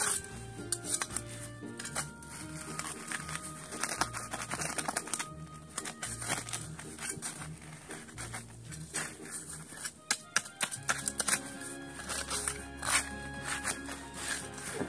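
Background music with held notes, over rustling, crunching and sharp clicks from gloved hands digging through dry grass and soil.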